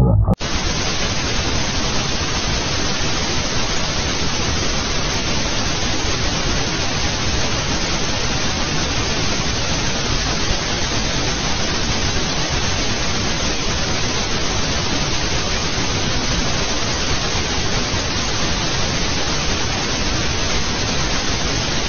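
Steady hiss of static white noise, even and unchanging, cutting in abruptly just after the start.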